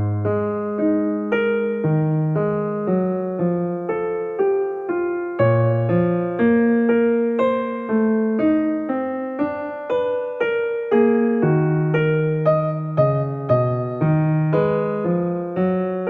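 Relaxing music played on a piano-sounding keyboard: single notes and chords struck about twice a second, each fading before the next.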